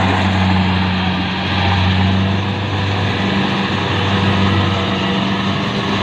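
Tracked rice combine harvester running: a steady, loud low engine hum with the broad rush of its harvesting machinery over it.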